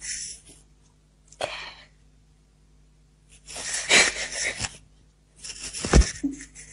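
A woman breathing and sniffing in four short noisy bursts, the third the loudest. A low thump about six seconds in, as the phone is handled.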